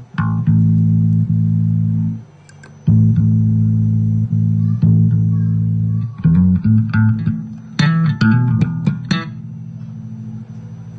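Electric bass guitar played through a Zoom MultiStomp MS-60B multi-effects pedal set to an amp simulation. It plays two long held low notes, then a run of quicker plucked notes, and the last one rings on and fades near the end.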